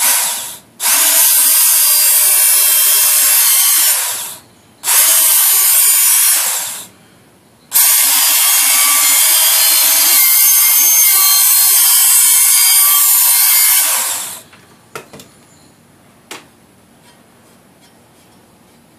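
Handheld Work Sharp electric belt sharpener grinding the edge of a steel shovel blade on its coarse belt, run in four trigger bursts: a brief one, then about three seconds, two seconds and a long six-second pass. A couple of faint knocks follow near the end.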